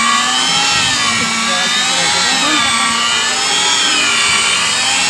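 Electric motor of the pipe-facing tool on an HDPE butt-fusion machine running, its pitch rising and falling slowly about every two seconds as the load on it changes.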